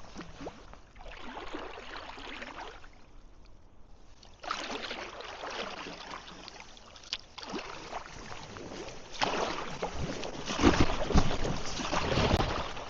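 Kayak paddle strokes swishing and splashing through the water in bursts, growing louder with low knocks over the last two seconds or so.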